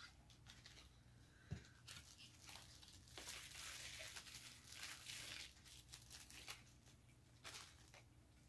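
Faint rustling and tearing of a small cardboard pocket-knife box and its packaging as the knife is unpacked, with a sharp knock about a second and a half in.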